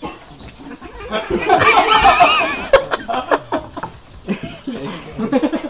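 A person laughing, loudest for about two seconds beginning a second in, with softer laughing near the end.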